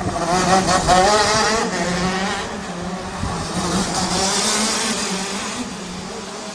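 Racing kart engine revving hard as it accelerates round a roundabout, its note wavering up and down and loudest about a second in, then rising again as the kart passes close by. A steady low hum runs underneath.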